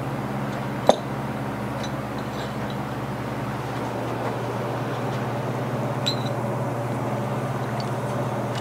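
Steady low mechanical hum, with a sharp metallic click about a second in and a lighter click about six seconds in.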